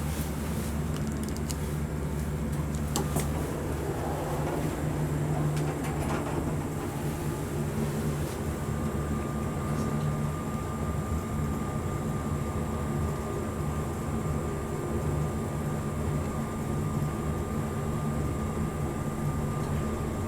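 Seiwa elevator car travelling between floors: a steady low hum of the drive machinery, with a few light clicks in the first seconds and a faint steady high whine joining about eight seconds in.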